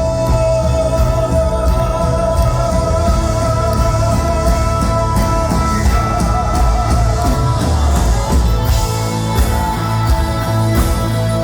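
Live rock band playing a ballad, with drums, bass and guitar. A long held note rides over the band and gives way to a new line about halfway through.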